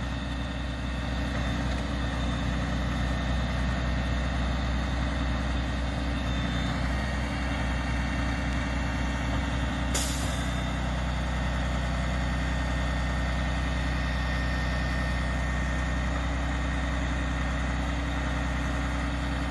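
Hi-rail truck's diesel engine running steadily at low speed as it creeps along the track. About halfway through there is one short hiss of released air.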